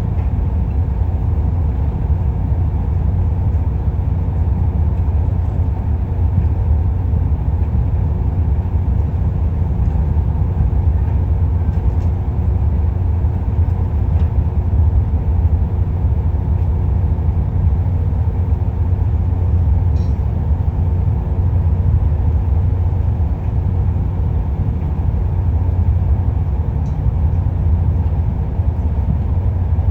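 Diesel engine of a Kobelco excavator running steadily, a constant low rumble with a few faint clicks.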